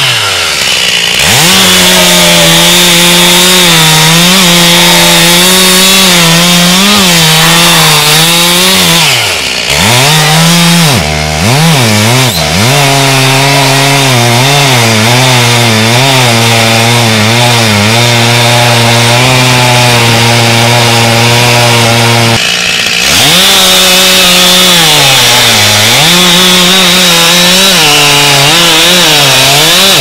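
Two-stroke chainsaw at full throttle cutting through a standing tree trunk in a felling cut, its engine note sagging as the chain bites into the wood and picking back up. Around a third of the way in it dips sharply several times, then runs lower and steadier under load for about ten seconds before rising again.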